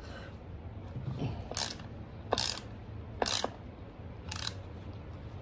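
Ratcheting wrench clicking in four short bursts, roughly a second apart, as it backs out the 13 mm bolts on the side cover of a BMW E36 differential.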